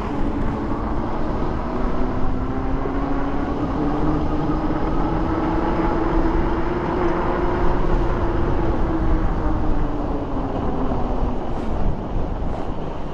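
Dual Bafang hub motors of a 72 V fat-tyre e-bike whining while riding. The pitch rises as the bike speeds up, then drops and fades about eleven seconds in as it slows, over a steady rush of wind and tyre noise.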